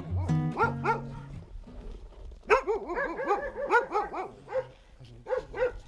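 Acoustic guitar music tails off in the first second. Then several dogs bark in a rapid, overlapping flurry for about two seconds, followed by a few single barks.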